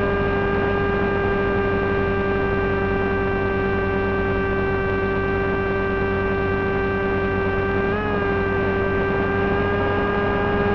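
Brushless electric motor and small propeller of a Wing Wing Z-84 flying wing, a steady whine at low cruise throttle, with a brief wobble in pitch about eight seconds in.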